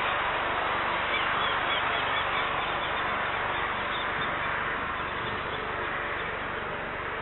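Steady rushing noise, easing slightly, from an Airbus A321neo's jet engines at taxi power, with a few faint bird chirps over it in the first half.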